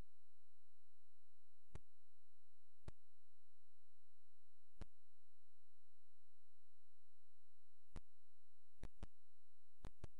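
Steady low hum with faint high steady tones, broken by sharp clicks, about eight of them, coming in quick pairs near the end.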